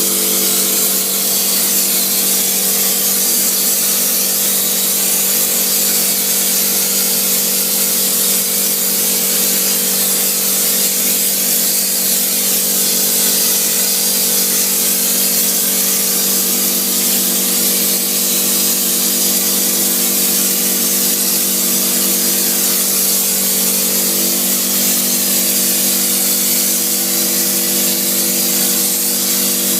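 Insulation spraying equipment running: a steady, loud hiss with an even machine hum underneath, unchanging throughout.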